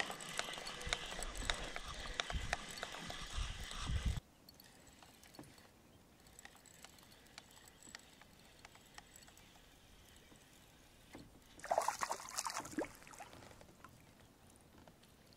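Shirt fabric rubbing and knocking against a body-worn camera's microphone for about four seconds, then quiet lake background with faint clicks while a largemouth bass is reeled in, and a brief splash about twelve seconds in as the fish thrashes near the kayak.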